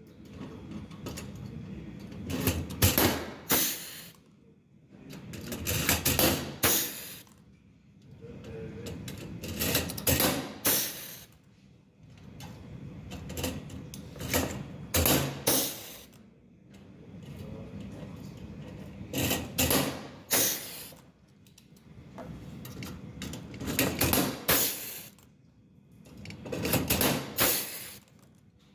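Pneumatic rivet machine cycling about seven times, roughly every four seconds. Each cycle is a rising rush of air ending in a few loud, sharp snaps, with short quiet gaps between.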